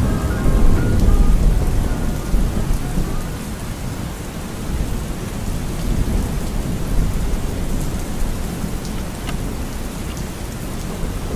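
Steady rain falling, with a low roll of thunder that swells in the first couple of seconds and then eases.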